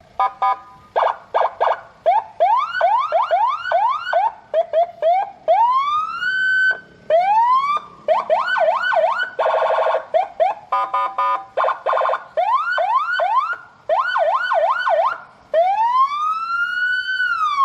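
Electronic vehicle siren run through its tone patterns: short stepped chirps, fast repeated rising sweeps, a brief buzzy horn blast about nine and a half seconds in, then a long slow rising-and-falling wail starting near the end.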